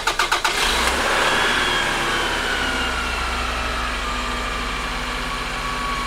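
Car engine cranking on jumper-cable power from the donor car and catching within about half a second, its dead battery boosted. It then runs steadily, with a high whine that slowly drops in pitch as the engine settles toward idle.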